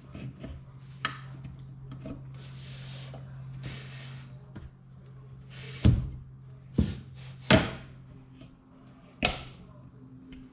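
Sliding pane of a CFMOTO U10 Pro's rear glass being worked in its track: two soft rubbing swishes, then four sharp clacks as it is knocked shut against the frame, over a steady low hum.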